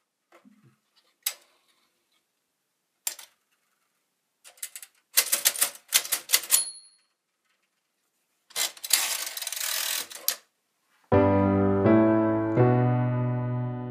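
Metal typebars of a 1965 Marx marxwriter toy typewriter striking: a few single keystrokes, then a quick run of typing that ends in a brief high ding of the end-of-line bell. Then the carriage is pushed back with a rattling slide of about two seconds. Piano music comes in about three seconds before the end.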